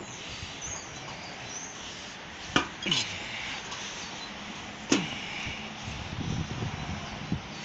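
A few sharp knocks and clanks from an aluminium ladder as a person steps and shifts on it, the two loudest about two and a half and five seconds in, over faint steady background noise.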